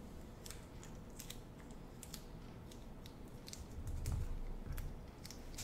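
Faint handling sounds: scattered light ticks and clicks of fingers pressing rolled-up loops of tape onto a cardboard frame, with a soft low rubbing of a hand pressing on the cardboard about four seconds in.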